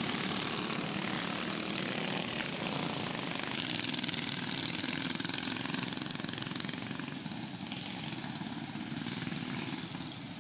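Several small go-kart engines running as the karts lap a dirt oval track.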